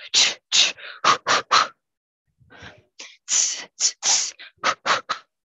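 A boxer's short, sharp hissed exhalations, one with each punch of a shadow-boxing combination: a quick run of about five, a pause of over a second, then about seven more, heard over a video call.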